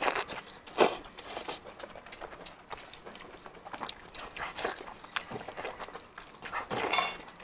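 Close-miked eating: a person biting, tearing and chewing saucy braised meat, with wet mouth smacks and small clicks. Louder bites come at the start, about a second in and near the end, with quieter chewing between.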